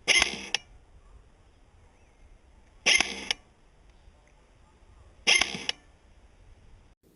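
Three single shots from a G&G GR25 DMR electric airsoft rifle, each a sharp crack with a short mechanical tail from the gearbox, spaced a few seconds apart.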